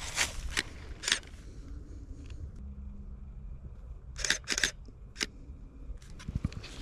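Camera shutter firing, sharp separate clicks in a quick group about four to five seconds in, after a few footsteps at the start.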